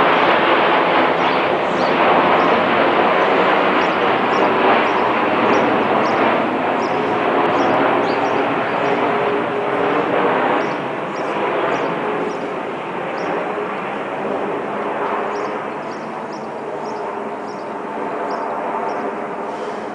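Boeing 787-9 Dreamliner jet airliner flying over on its descent: the steady rushing drone of its Rolls-Royce Trent 1000 engines, fading gradually over the second half. Repeated short high chirps sound above it throughout.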